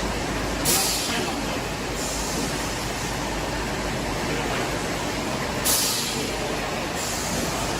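Industrial bubble tea pearl making machine running with a steady mechanical noise, broken by two sharp hisses, each a little over a second long and about five seconds apart.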